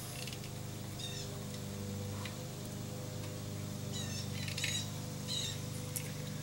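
Small birds chirping in short calls a few times over a steady low hum, with a few faint clicks as the wire is worked by hand.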